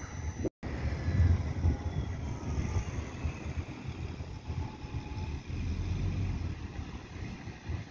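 Low, uneven rumble of a city bus driving round a roundabout at a distance, with a few faint gliding whines above it. The sound drops out completely for a moment about half a second in.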